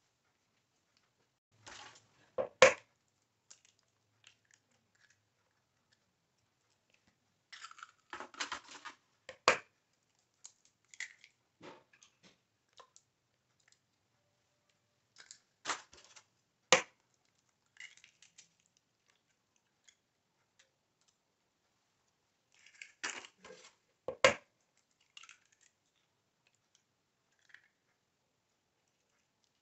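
Eggs being cracked on the rim of a mixing bowl and their shells pulled apart to separate whites from yolks. This comes four times, a few seconds apart, each a short crackle of shell with one sharp crack.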